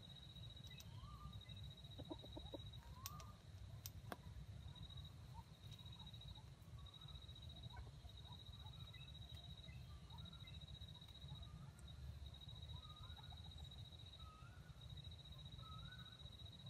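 Faint soft calls of junglefowl: short rising chirps every second or so, more frequent in the second half, over a low rumble and a high pulsing drone.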